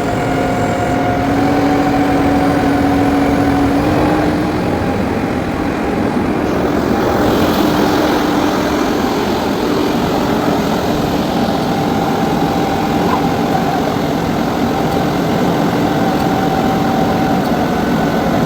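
Crane truck's engine running steadily and loudly, with a humming whine that steps up in pitch a couple of times in the first few seconds as the crane is set to work.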